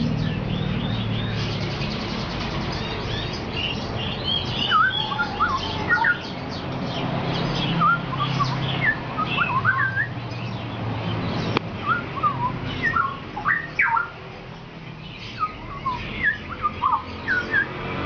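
Caged songbird calling in short, scattered chirps and quick whistled notes, in bursts with brief pauses, over a steady low background hum.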